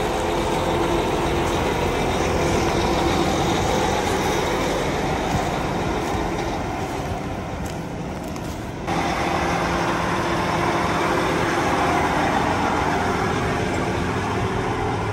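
Case IH Steiger 715 Quadtrac's 16-litre two-stage-turbo diesel engine running steadily. The sound dips slightly, then steps back up about nine seconds in.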